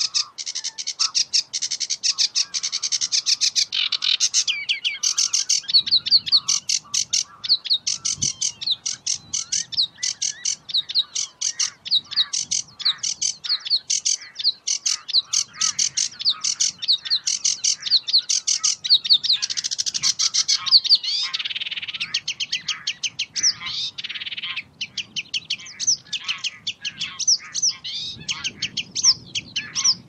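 Sedge warbler singing a long, fast, high-pitched song of rapid chattering notes and trills, switching from one phrase to the next every second or so without a pause.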